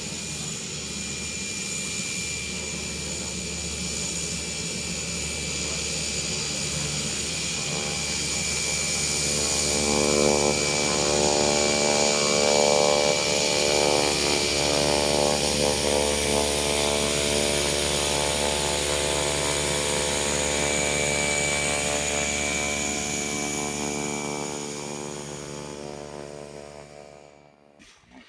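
Engine and propeller of a high-wing single-engine light aircraft running steadily with a high whine above it, growing louder over the first ten seconds or so as the plane rolls closer on the ground, then fading out near the end.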